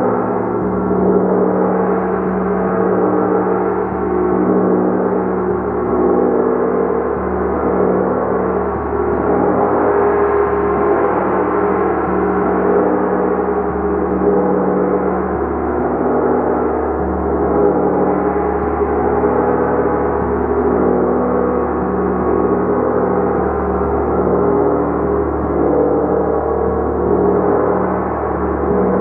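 Large gong played continuously in a sustained, shimmering wash of many overlapping tones, swelling and ebbing slowly, with a pulsing low hum underneath.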